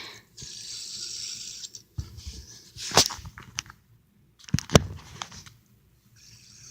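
A fidget spinner whirring on its bearing in short spells of steady hiss, with two sharp clicks about three and about four and a half seconds in.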